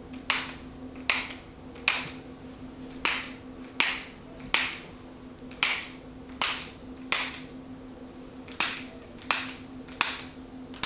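Chiropractic activator, a spring-loaded hand-held adjusting instrument, firing sharp clicks against the sacrum during an adjustment. The clicks come about one every three-quarters of a second, thirteen or so in all, with a slightly longer pause about eight seconds in.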